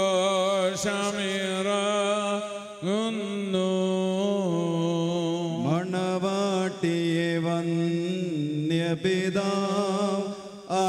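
A man's voice chanting the liturgical hymn of the wedding crowning rite, in long held, wavering notes sung in several phrases with short breaks between them.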